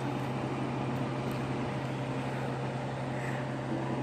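Steady low electrical hum of a freezer's newly fitted refrigeration compressor running, over a constant background noise.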